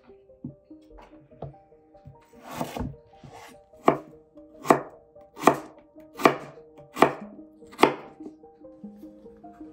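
Chef's knife chopping peeled potatoes into cubes on a wooden cutting board: a run of sharp knocks, the loudest coming about one every 0.8 seconds from about four to eight seconds in.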